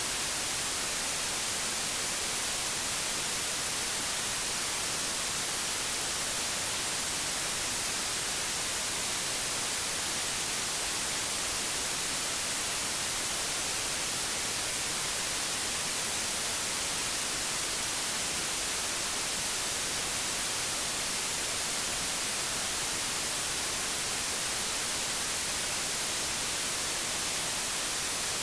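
Static from an old television: an even, unchanging hiss, strongest in the high end.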